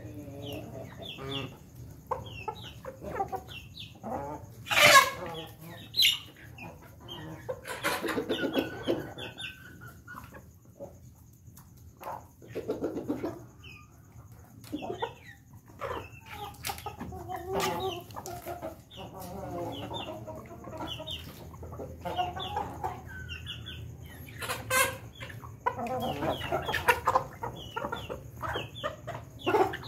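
Ayam Ketawa ('laughing chicken') roosters clucking and calling while pecking feed from a metal bowl. Sharp knocks of beaks on the bowl come now and then, the loudest about five seconds in and again toward the end.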